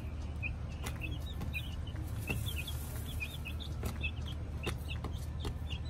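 Young chicks peeping, a string of short high chirps, with scattered light clicks over a steady low hum.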